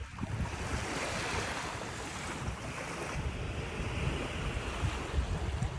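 Ocean waves washing onto a beach, with wind buffeting the microphone in low rumbling gusts.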